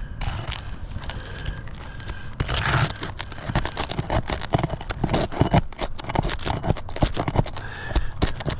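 Brittle asphalt roof shingle scraping and crackling as it is worked loose from the roof. A dense run of sharp cracks and scrapes starts about two seconds in.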